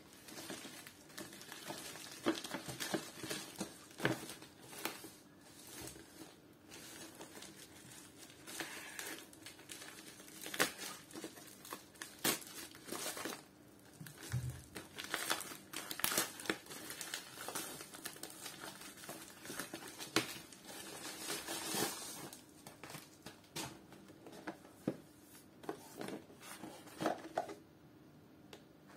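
Thin plastic mailer bag crinkling and rustling as it is handled and pulled open, in dense, irregular crackles that thin out near the end.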